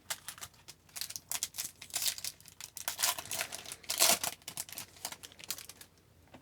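Crinkling and tearing of a foil trading-card pack wrapper being opened and handled, a run of irregular crackles loudest about four seconds in.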